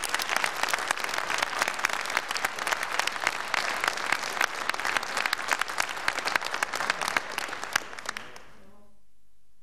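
Studio audience applauding, a dense clatter of many hands clapping that fades away about eight seconds in, leaving only a faint low hum.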